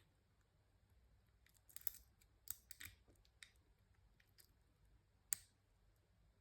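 Faint, scattered clicks and scrapes of a half-diamond lock pick working the pins of a 6-pin ERA euro cylinder, with one sharper click a little after five seconds in.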